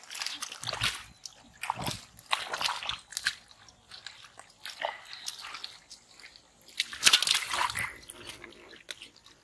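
Hands splashing and squelching in shallow muddy water and mud, in irregular bursts, the loudest a little past the middle.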